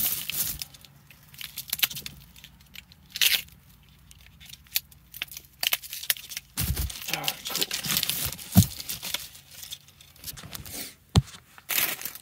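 Packing tape on a cardboard shipping box being cut through and ripped open, in irregular bursts of tearing and scraping with a few sharp knocks in the second half.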